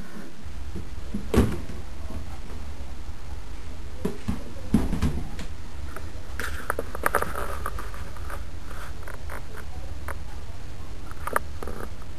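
A wastebasket knocking and scraping on a vinyl floor as a cat wriggles inside it and it tips over, with a few separate knocks, the sharpest about a second in. A steady low hum sits underneath.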